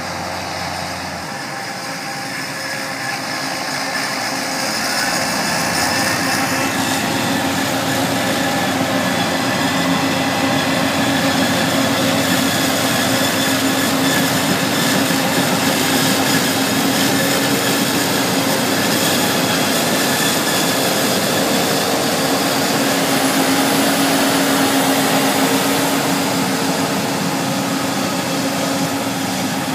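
Forage harvester chopping maize, with tractor and tracked-machine diesel engines running alongside: a steady, heavy machinery noise with a constant hum. It grows louder over the first ten seconds as the machines come close, then holds.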